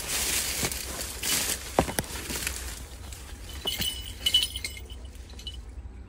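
Leaves and twigs of a bush rustling and crackling as a hawk eagle moves over its prey among them, with a few sharp snaps about two seconds in. A little past halfway come several short, high, thin squeaks.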